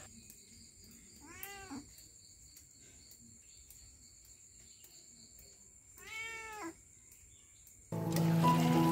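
A domestic cat meowing twice, two short calls about five seconds apart. Music comes in suddenly near the end.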